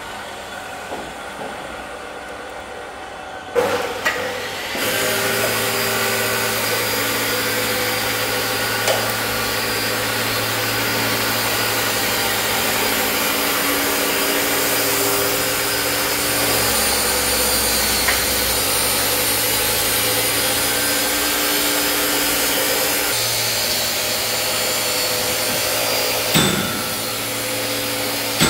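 Electric motor of an industrial stand stirrer machine switched on, running steadily with a hum and whine for about twenty seconds, then switched off with a thump near the end.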